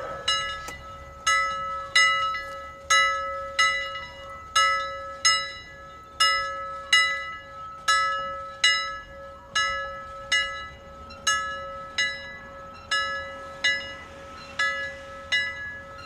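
A metal bell struck over and over, about one and a half strokes a second in an uneven, swinging rhythm. Each stroke rings on beneath the next.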